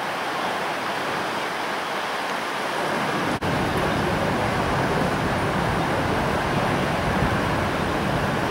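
Strong wind blowing on the microphone: a steady rushing noise with irregular low rumbling buffets, which grow stronger after a brief drop in the sound about three and a half seconds in.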